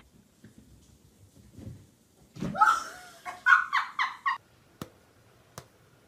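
A girl laughing: a rising squeal about two seconds in, then a run of giggles, about five a second, lasting about two seconds. Two faint taps follow near the end.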